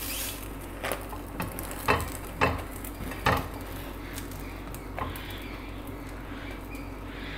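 Silicone spatulas tapping and scraping against a nonstick frying pan while an omelette is rolled: about six short knocks in the first five seconds, then quieter, over a low steady sizzle of egg frying in oil.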